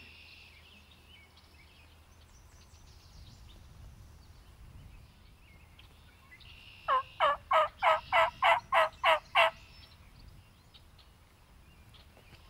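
Turkey calling: a loud series of about ten evenly spaced notes, roughly four a second, each dropping in pitch, starting about seven seconds in. Faint birdsong runs underneath.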